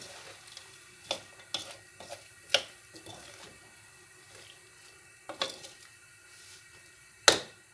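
Wooden spatula scraping and knocking against an aluminium wok as julienned vegetables are stir-fried, over a faint sizzle. A handful of sharp knocks, the loudest near the end.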